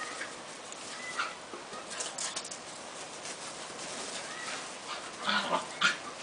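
Small sounds from pets: faint thin squeaks and scattered clicks, then two louder short noisy sounds about half a second apart near the end.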